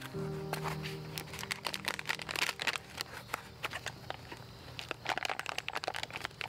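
Bike packaging being handled: wrapping crinkling and crackling in quick irregular bursts. A held music note fades out about a second and a half in.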